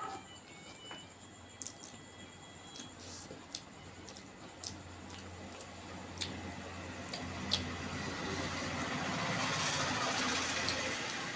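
Close-up eating sounds, scattered sharp clicks and smacks, then a liquid rush that swells for a few seconds and eases off, like water being poured or splashed.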